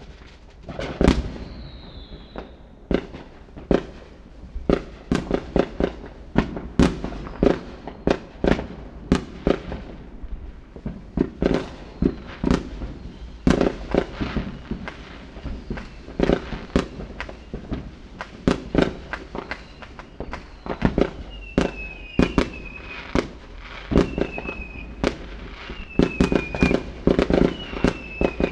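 Fireworks going off: an irregular string of sharp bangs and pops, several a second at times. A falling whistle comes about two seconds in, and short falling whistles repeat roughly once a second in the last third.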